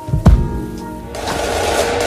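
Background music: one sharp drum hit with a bass thud about a quarter second in, over held tones. From about halfway, a dense swell of noise builds up.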